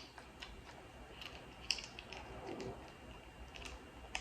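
Soft, scattered wet clicks and smacks of a person chewing sushi with the mouth.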